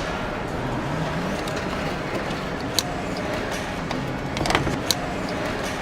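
Car factory assembly-line noise: a steady machinery din with a few sharp metallic clicks, three of them in the latter half.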